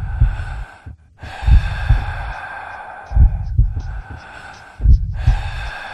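Film sound design of a slow heartbeat: a deep double thump about every one and a half seconds, over a hissing, breathy drone.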